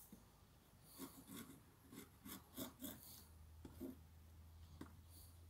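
Metal hive tool scraping and prying at the wooden frames of a beehive: a faint string of short rasping strokes, most of them in the first few seconds.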